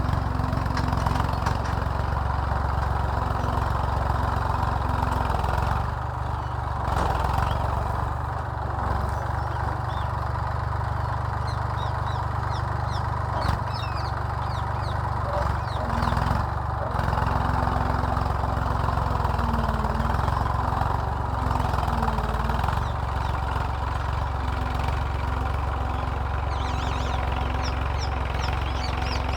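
Massey Ferguson tractor's diesel engine running steadily while pulling a plough.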